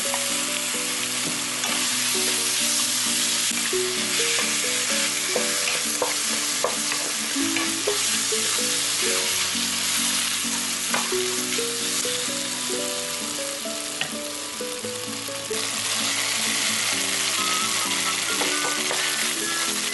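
Pork slices, and near the end garlic scapes, sizzling in hot oil in a wok while a wooden spatula stirs them, with short clicks of the spatula against the pan. Background music plays over the frying.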